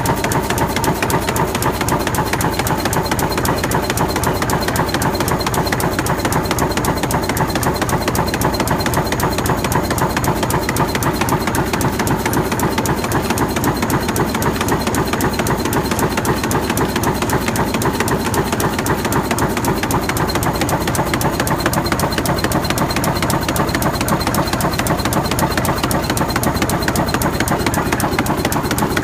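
Artificial turf tufting machine running, its needle bar stitching yarn with a rapid, even mechanical clatter that holds steady throughout.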